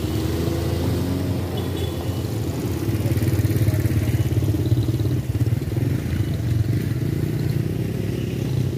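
Pickup engine idling steadily, with motorcycles riding past; the passing is loudest about three to five seconds in.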